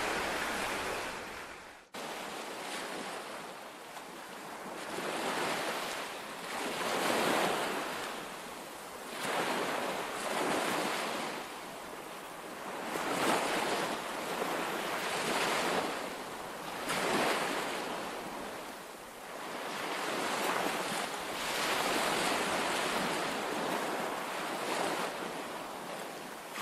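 Outdoor wind and sea surf, a rushing noise that swells and eases every two to three seconds, with a brief dropout about two seconds in.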